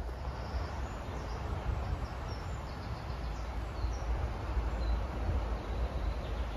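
Steady low rumble with faint, scattered bird chirps high above it.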